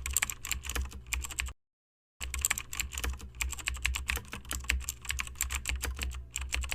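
Rapid typing clicks, as of a keyboard, in two runs: one of about a second and a half, then a short break, then a longer run of about four and a half seconds.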